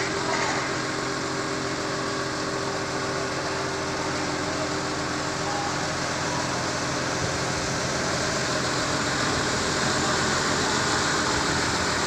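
TCM FD70 diesel forklift's engine running steadily under load, growing a little louder in the last few seconds.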